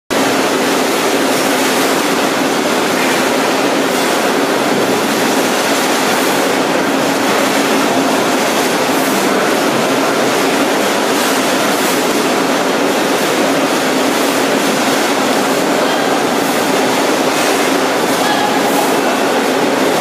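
Cassava dry sieve, a rotating mesh drum, running steadily with its feed belt conveyor. A continuous mechanical rumble with a steady hum, and irregular clatter from cassava roots tumbling inside the drum.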